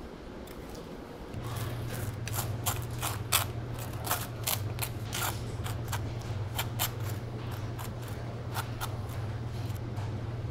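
Knife scraping jam across a slice of toast in a run of short scraping strokes, over a low steady hum that starts about a second in.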